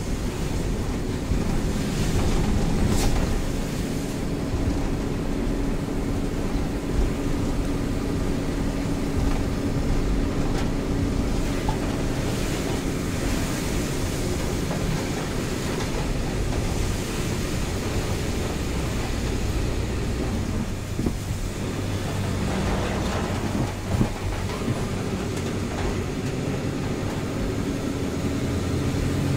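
Mitsubishi Fuso Fighter truck's diesel engine running steadily under way, heard inside the cab, with the hiss of rain and tyres on the wet road. A couple of brief knocks stand out, one a few seconds in and one near the end.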